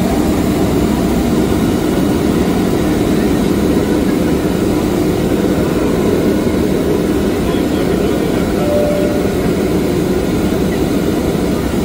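Steady cabin drone of an Embraer C-390 Millennium in cruise flight: its two turbofan engines and the airflow over the fuselage, heard from inside the cabin.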